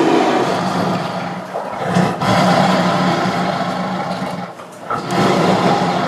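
Tiger growling and roaring in three long growls with short pauses between them.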